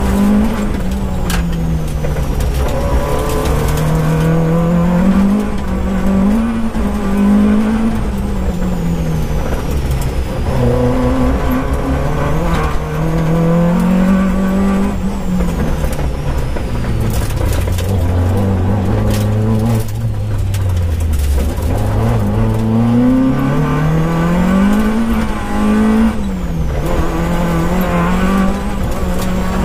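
Peugeot 205 GTi6 rally car's four-cylinder engine heard from inside the cabin, driven hard: the pitch climbs through each gear and drops at each change or lift, over and over. About two-thirds through it falls much lower for a few seconds, as for a slow corner, then climbs again.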